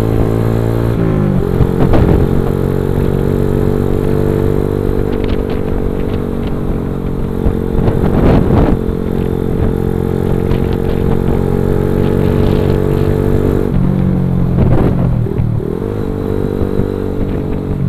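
Motorcycle engine running under way: its pitch rises about a second in, holds steady while cruising, drops around fourteen seconds in as it slows, then climbs again near the end. A few brief gusts of noise cut across it.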